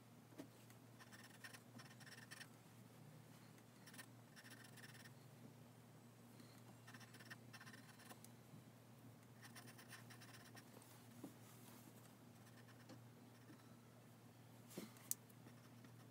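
Pencil sketching on paper: faint scratchy strokes in short runs every few seconds, over a steady low hum. A sharp tick comes near the end.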